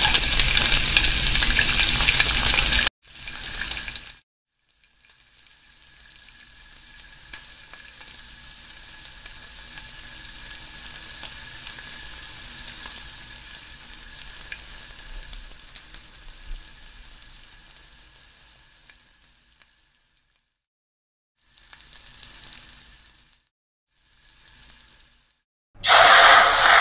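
Hot oil in a kadhai sizzling loudly as chopped onion drops in, then a steadier, quieter frying sizzle of onion, green chilli and spice masala, broken by sudden cuts. Near the end water poured into the hot masala gives a second loud hiss.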